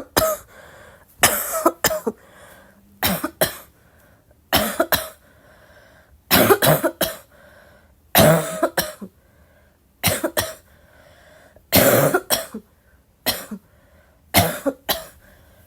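A person in a continuous coughing fit: repeated bouts of two or three sharp, harsh coughs, one bout roughly every one and a half seconds, with short pauses between.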